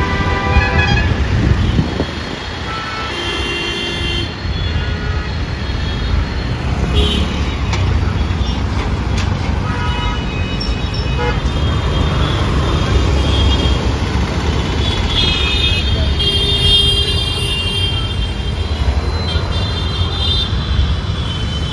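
Busy city road traffic: motorbikes, auto-rickshaws and cars running past, with vehicle horns tooting several times, one held for a few seconds past the middle.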